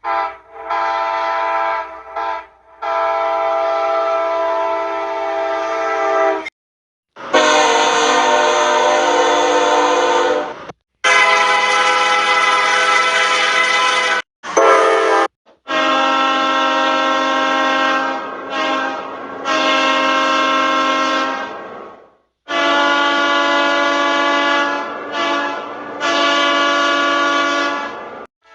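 A run of different locomotive air horns, one recording after another. Each sounds long, steady, multi-note blasts, some broken by short gaps, and the recordings cut off suddenly between one horn and the next.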